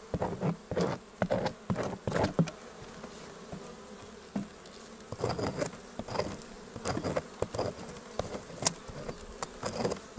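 Honeybees buzzing around an open hive, with irregular scraping and clicking as a knife scores open the wax cappings on a frame of honey.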